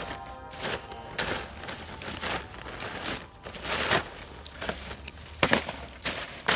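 Plastic rubbish bags and a paper cement sack rustling and crinkling as they are pulled and pushed aside by hand, in irregular bursts with a few sharper crackles.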